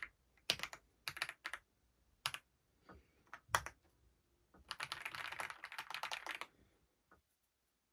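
Wisely 99-key mechanical keyboard being typed on: keystrokes clacking in short irregular clusters, with a dense fast run of keystrokes about five seconds in.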